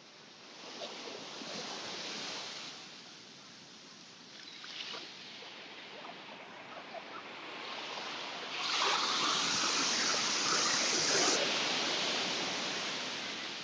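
Ocean waves breaking on a beach, surf washing up and back in swells. The loudest swell comes about two-thirds of the way through and lasts a few seconds before fading.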